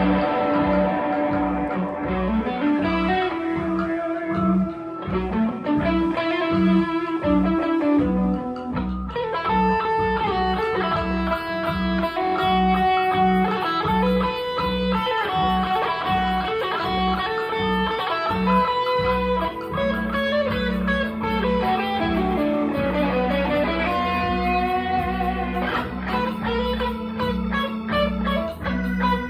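Instrumental rock jam: an electric guitar plays a lead line over bass guitar and drums keeping a steady beat.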